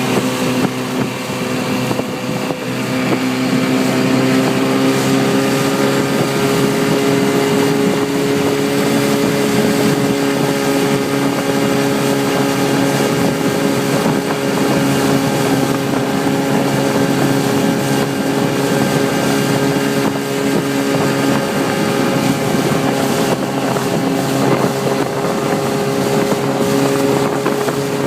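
Motorboat engine running steadily, its note rising a little a few seconds in and then holding, with wind buffeting the microphone.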